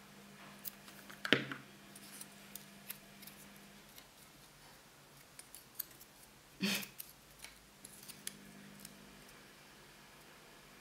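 Hands handling small pieces of card stock at a tabletop: light crisp rustles and clicks as the paper is pressed and shifted, with two louder knocks on the table, one about a second in and one past the middle.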